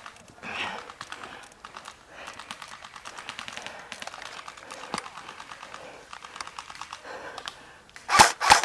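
Airsoft guns firing: a faint, rapid clicking rattle of distant shots for most of the time, then, near the end, several loud sharp shots in quick succession close by.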